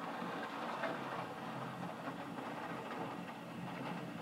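Heavy rain falling steadily: an even hiss with many small drop impacts.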